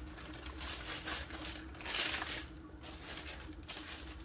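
Paper rustling and crinkling in several short bursts as a syrup-soaked sponge sheet is rolled up for a Swiss roll.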